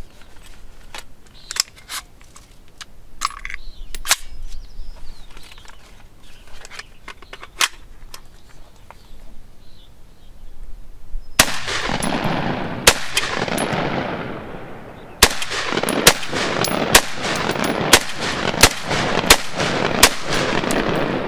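Small clicks and knocks of an AR-15-style pistol being handled, then from about halfway in, loud 5.56 mm gunshots with a long echo after each. Two spaced shots come first, then a steady semi-automatic string at a little under two shots a second, the gun cycling without a jam.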